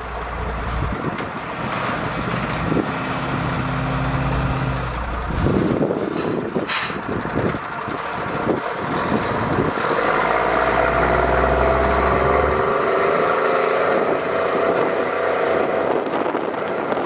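Engines of an armored Suburban and a 5-ton truck with an 8.3-litre Cummins turbo diesel running hard under load as the two pull against each other on a tow strap. A steady higher whine joins in from about ten seconds in.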